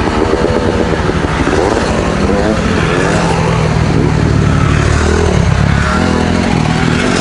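Single-cylinder four-stroke dual-sport motorcycle engine running under way, its pitch rising and falling as the throttle is opened and closed.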